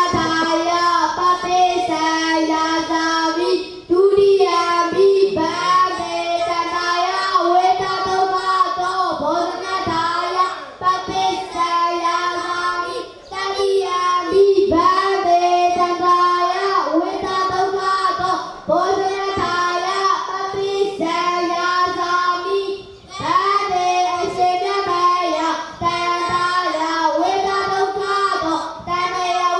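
A group of young Burmese Buddhist novice monks chanting in unison to a sing-song melody, the boy at the microphone loudest, amplified. The chant runs on with short pauses for breath every few seconds.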